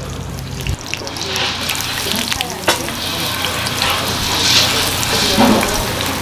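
Batter for a Korean pancake (jeon) frying in oil on a cast-iron cauldron lid, a dense sizzle with scattered crackles that starts about a second in, after a low steady hum cuts off.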